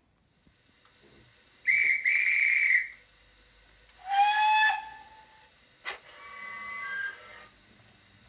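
Steam-whistle sounds from the DCC sound decoder of a Bachmann OO gauge GWR Dukedog (Earl class) 4-4-0 model. A high whistle gives two blasts about two seconds in, a second, lower whistle sounds about four seconds in, and a click near six seconds is followed by a rising hiss of steam.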